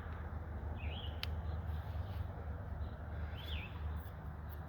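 A bird's short wavering chirp, twice, about two and a half seconds apart, over a steady low hum; a single sharp click about a second in.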